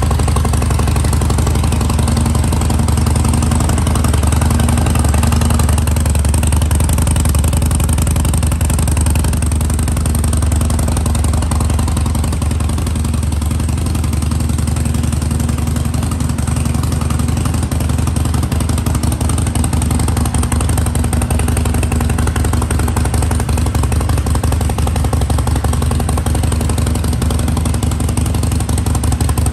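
Harley-Davidson SuperLow Sportster's air-cooled V-twin idling steadily, a continuous low engine beat.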